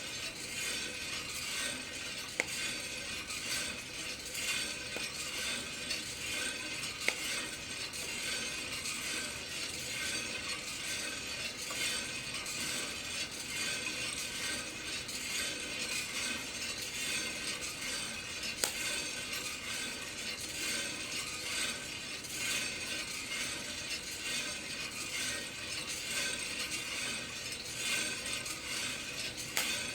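Green coffee beans tumbling in the rotating drum of a Kaldi home coffee roaster: a steady, even mechanical rattle. A few single sharp clicks stand out, about two seconds in, about seven seconds in and past the middle.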